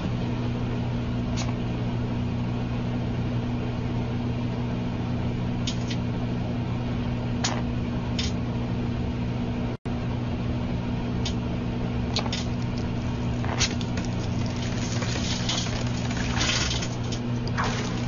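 Microwave oven running with a steady low hum while a mobile phone inside it arcs and burns, giving off sharp crackles and pops that are sparse at first and come thick and fast near the end. The sound cuts out for an instant about ten seconds in.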